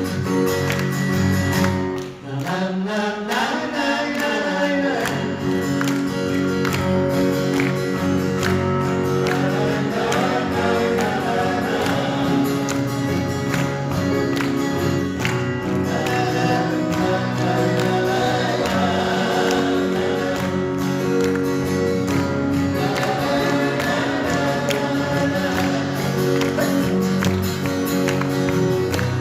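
Male vocal group singing in close harmony over strummed acoustic guitars, with a brief dip in the music about two seconds in.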